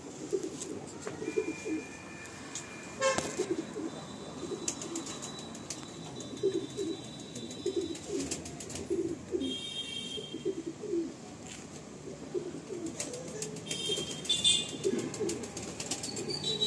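Domestic pigeons cooing: many short, low coos following one another all through, from more than one bird.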